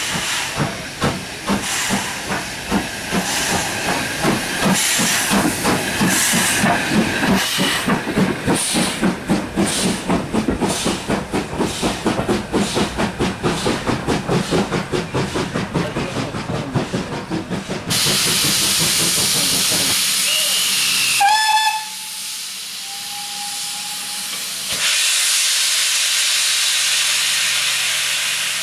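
BR Standard class 4MT 2-6-4 tank locomotive No. 80072 and its coaches running into the platform with a fast rhythmic clatter. This gives way to a steady hiss of steam, a short whistle about two thirds of the way in, then a louder hiss of steam escaping at the front of the locomotive.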